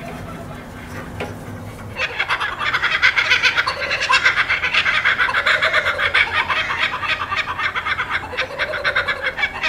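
A laughing kookaburra calling: from about two seconds in, a long, loud run of its rapid cackling laugh that keeps going. Before it, a drill press motor hums steadily.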